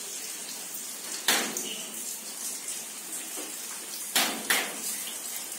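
Steady hiss of rain falling, with three sharp clicks, one about a second in and two close together near the end.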